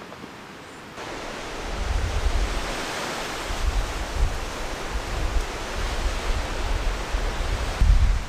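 Wind gusting over the microphone: a loud hiss with uneven low buffeting that comes up suddenly about a second in and drops off briefly near the end.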